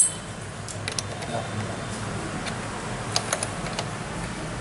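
A few scattered light clicks and taps, in small groups about a second in and again around three seconds in, from parts being handled and fastened while a brush cutter is being assembled.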